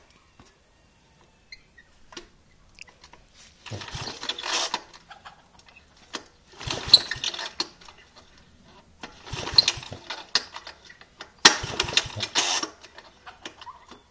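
Gorenje Muta two-wheel tractor's engine being pull-started from cold: four hard pulls on the recoil starter, each about a second of rasping cord and cranking, without the engine catching and running.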